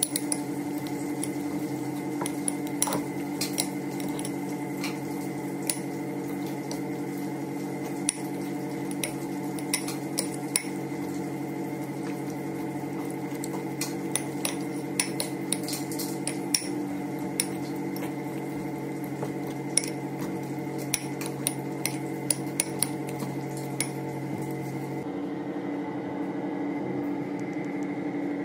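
Metal fork clinking and scraping against a ceramic bowl while mashing cooked liver, in irregular clicks, over a steady mechanical hum. The clicking stops near the end.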